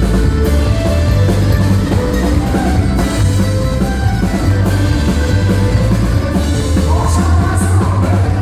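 Live country band playing through a PA: mandolin, acoustic guitar and fiddle over drums and a heavy bass line.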